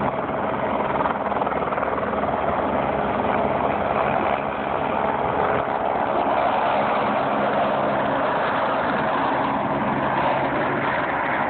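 Helicopter flying low and close, a steady, unbroken rotor and engine noise.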